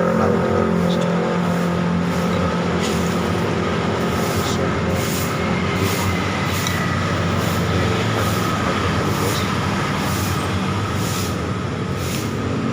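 Steady traffic noise from vehicles running along a busy road close by, with a few faint clicks now and then.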